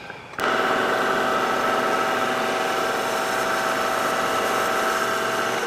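Small metal lathe switched on about half a second in and running at a steady speed: an even motor and gear whine with a few clear steady tones.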